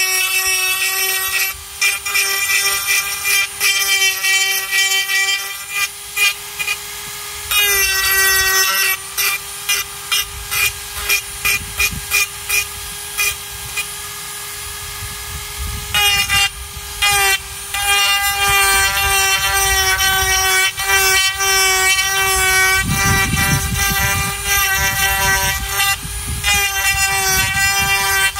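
Flexible-shaft rotary carving tool whining steadily at high speed, its bit grinding into a dried gourd shell in short repeated passes. From just past the middle the grinding runs on almost without a break.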